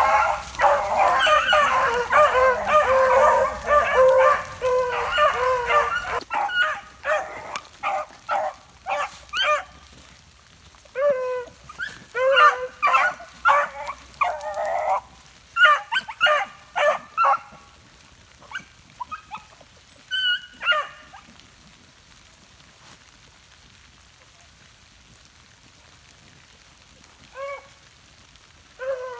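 A pack of beagles baying on a rabbit's track, many voices overlapping at first. After about six seconds the cry thins to scattered single bays, dies away for several seconds, and then a couple of bays come back near the end.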